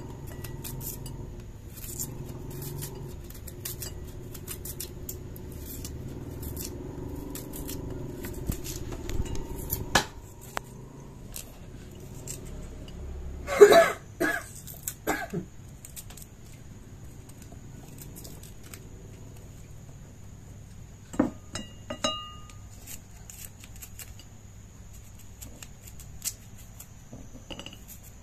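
Small knife tapping and scraping while shallots and garlic are peeled and sliced over a plastic cutting board and a ceramic plate: scattered light clicks, a louder cluster of knocks about halfway through, and a couple of short ringing clinks on the plate a few seconds later. Under it a low hum stops about ten seconds in, and a thin steady high tone runs throughout.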